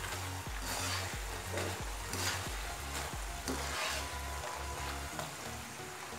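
Diamond-cut maida dough pieces sizzling as they deep-fry in hot oil in a kadai, stirred with a metal slotted skimmer. The sizzle swells briefly about once a second.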